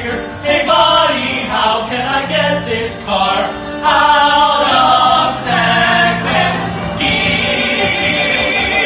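Several voices singing to a musical backing with a steady bass line, ending on a long held chord.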